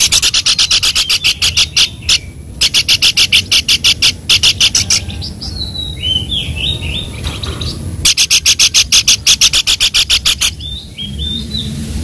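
Babbler (pelanduk) calling: three runs of fast harsh rasping notes, about seven a second, with short whistled notes between the runs.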